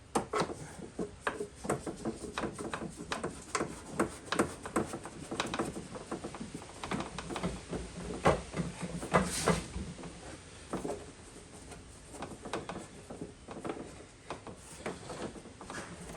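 Irregular clicks, taps and knocks of hand work on a jet ski's engine bay, as hoses, pipes and cables are handled and fitted.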